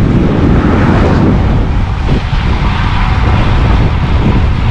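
Wind buffeting the microphone of a handheld camera carried on a moving bicycle: a loud, steady rumble.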